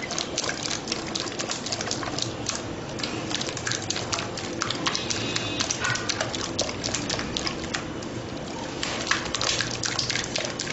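Thick custard being beaten hard by hand in a non-stick pot: a fast, uneven run of clicks and knocks as the utensil strikes the pot's sides, with the scrape and squelch of the thick custard.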